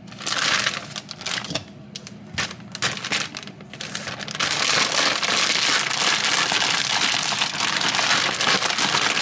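Crinkling and crackling, in scattered bursts at first and then continuous from about four seconds in.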